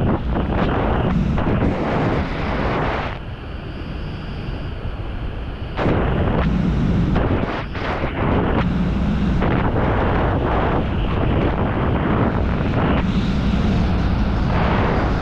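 Freefall wind rushing and buffeting over the camera's microphone: a loud, uneven roar that eases for a few seconds early on and then returns as strongly.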